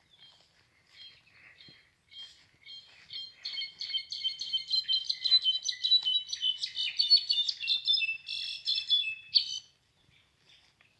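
Brown-backed solitaire (Mexican jilguero) singing one long, tumbling run of quick, high, ringing notes. It builds about two seconds in and stops abruptly near the end.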